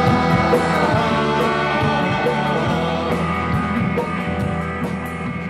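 A rock band playing live: electric guitar, bass guitar and a drum kit with cymbal hits, with voices singing at the start. The music slowly gets quieter as the song winds down to its end.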